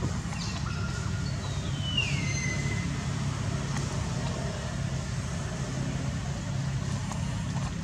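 Steady low rumble, with one high-pitched call sliding downward about two seconds in.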